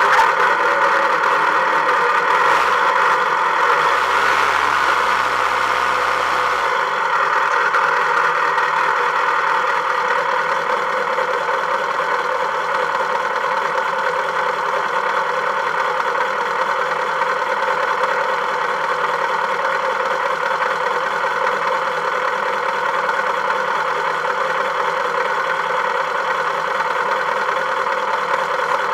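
Volkswagen engine running steadily at a constant speed. A deeper rumble with some hiss joins it for a few seconds near the start.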